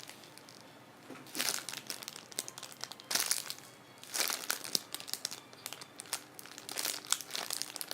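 Plastic packaging of squishy toys crinkling and rustling in several short bursts as it is handled.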